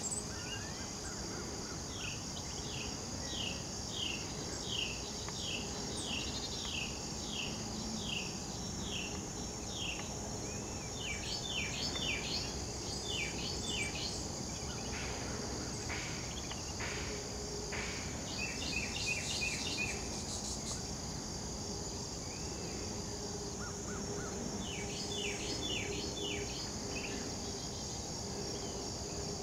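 Steady chorus of insects with wild birds calling over it: a run of quick, falling notes, about two a second, during the first ten seconds, then several shorter bursts of chirps later on.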